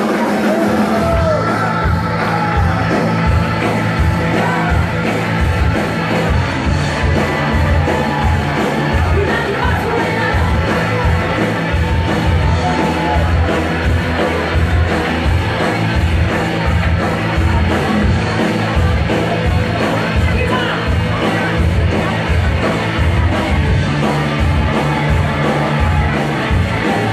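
Live rock band playing, with electric guitars, bass and drums under a woman singing. The full band with its steady beat comes in about a second in.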